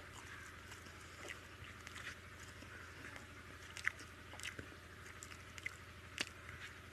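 Close eating sounds: chewing and mouth smacks, with fingers squishing rice and lau dal together on the plate. Scattered short clicks run through it, the loudest about four seconds in and another about six seconds in.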